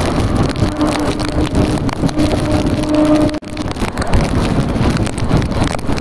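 An Indian Railways EMU local running at speed, with loud rushing wind and track noise at the open doorway and wind buffeting the microphone. A steady low hum runs through the first half, and the sound breaks off for an instant about halfway through.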